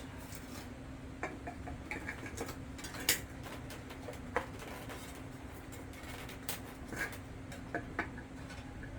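Irregular small clicks and taps of fan parts being handled and fitted during a capacitor repair, over a faint steady hum.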